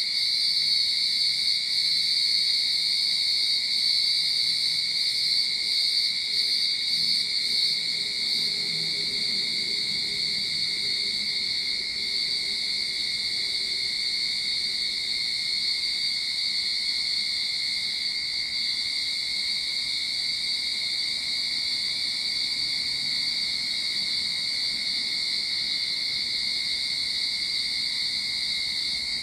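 A chorus of cicadas singing: a steady, unbroken high buzz. It is slightly louder for the first several seconds. A faint low rumble sits underneath through the middle stretch.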